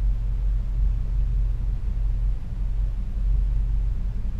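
Classic Austin Mini's A-series four-cylinder engine running steadily at idle, heard from inside the small cabin as a steady, low-pitched drone.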